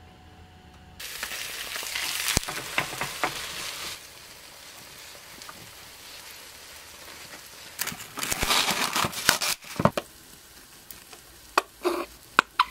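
Beaten egg and tuna mixture hits a hot oiled rectangular omelette pan and starts sizzling about a second in, loudest at first, then settling to a steady lower sizzle as it cooks. Near the end come a few seconds of louder rustling and several sharp clicks.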